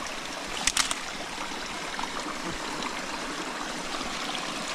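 Small stream running with a steady rush of water, and a short burst of sharp clicks a little under a second in.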